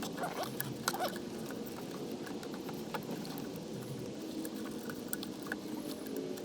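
Scattered light clicks, taps and scratching from hand work on the truck's plastic and metal parts, over a steady low background hum.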